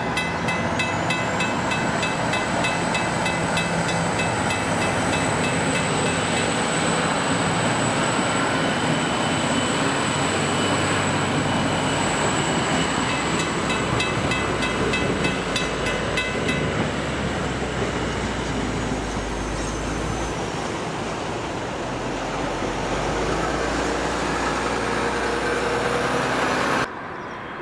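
Container freight train passing over a level crossing: a steady rumble and clatter of wagon wheels on the rails, with a thin high whine above it. A mechanical crossing bell rings with rapid strokes and stops about two-thirds of the way through. The sound drops off suddenly just before the end.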